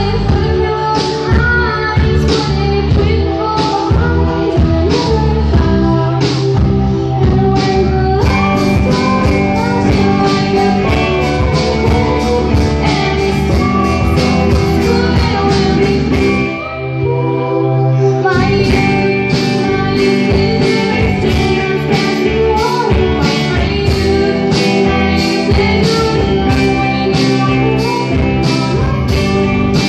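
A woman singing a song live into a microphone, accompanied by keyboard over a steady beat. About two-thirds of the way through the accompaniment drops away for a moment, then the full beat comes back.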